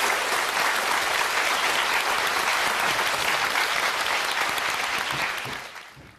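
Studio audience applauding steadily, the clapping dying away in the last second.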